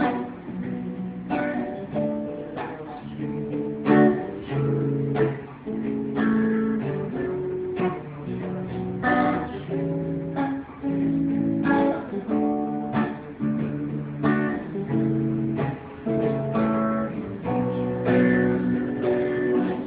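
Acoustic guitar strummed through a run of changing chords, with a sharp stroke roughly every second.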